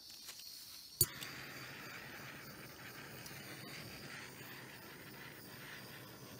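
Handheld butane torch clicked on about a second in, then its flame hissing steadily as it is passed over wet acrylic paint.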